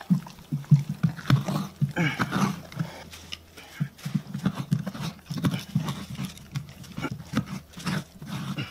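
A Siberian husky chewing a mouthful of raw, stringy pumpkin guts, with quick, irregular wet chomps of its jaws.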